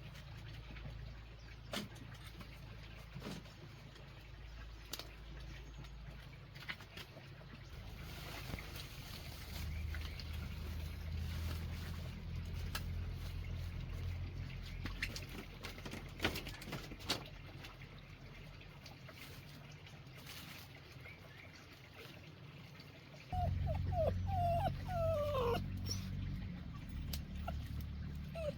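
Puppy whimpering, a run of short high whines sliding up and down near the end, over scattered small clicks and a low rumble.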